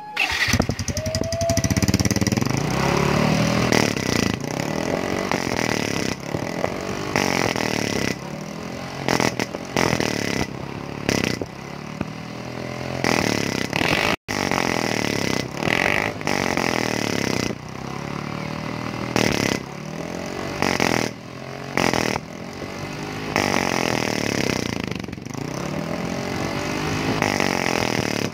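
Yamaha Fino 125 scooter's single-cylinder four-stroke engine starting and being revved in repeated throttle blips through a hollowed-out muffler, tuned for the loud "MP7 haring" exhaust note. The mechanic says the muffler joint's seal still leaks a little.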